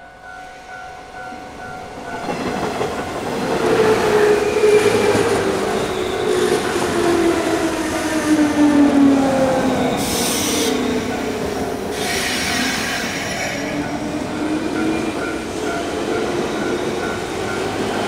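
Level-crossing warning bell dinging rapidly while an electric commuter train approaches and runs past over the crossing. The train's sound builds over the first few seconds, with a falling whine, and a brief high-pitched noise comes about ten seconds in.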